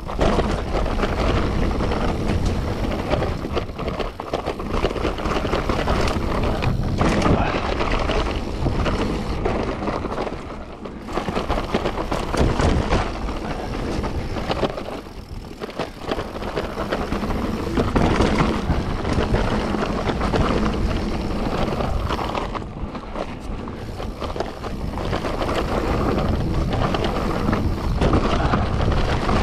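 Mountain bike riding over a rough, wet trail: steady tyre noise with many small knocks and rattles from the bike as it hits bumps, rising and falling with speed.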